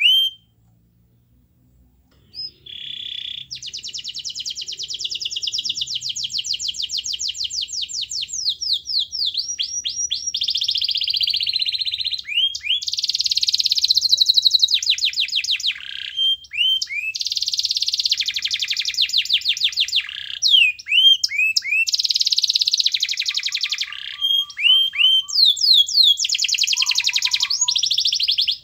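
Yellow domestic canary singing in full song, starting about two seconds in. The song is a long string of rapid trills, each a fast run of repeated notes, broken up by quick falling whistles.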